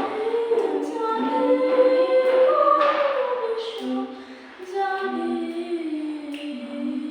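A small group of voices singing together unaccompanied, holding long notes.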